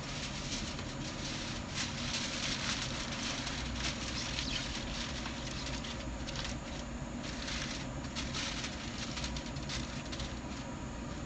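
Aluminium foil crinkling and rustling as it is wrapped over a brisket in a foil pan: irregular, crackly handling noise that comes and goes, over a steady low hum.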